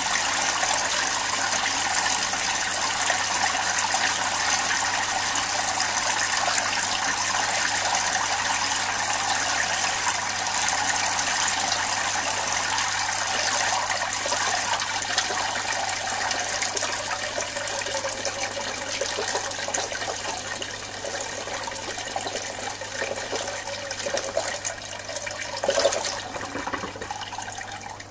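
Water splashing steadily as it streams out of the holes of a 3D-printed PLA aquaponics bubble head on a PVC pipe and falls into the fish tank, mixing air into the water. The splashing weakens over the last ten seconds or so as the flow dies away, with one brief louder splash near the end.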